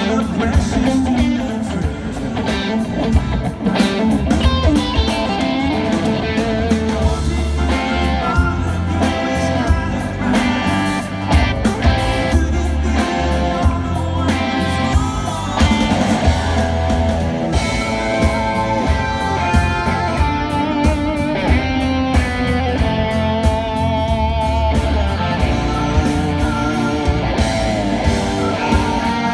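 Rock band playing live at a sound check, with the electric guitar louder than the rest of the band over a steady bass and drum beat.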